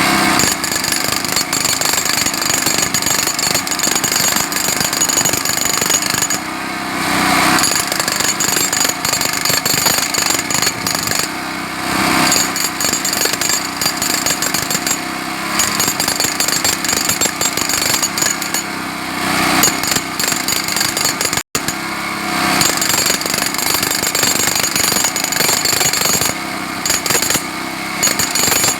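Jackhammer hammering continuously, with small shifts in its sound every few seconds and a split-second break about twenty-one seconds in.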